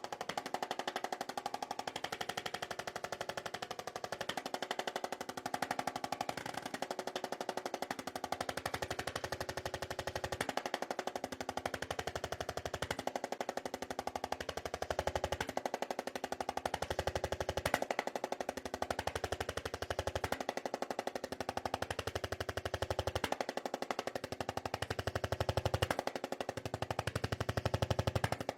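Electric handheld percussion massager hammering rapidly on the patient's muscles: a fast, even buzz of blows with a motor tone that wavers in pitch. The low thud drops out briefly about every two to three seconds as the head is lifted and moved.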